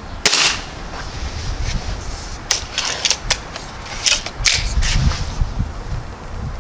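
A Gamo Swarm break-barrel air rifle fires a single .177 shot about a third of a second in, a short sharp crack. A run of lighter clicks and taps follows a couple of seconds later, over a low rumble.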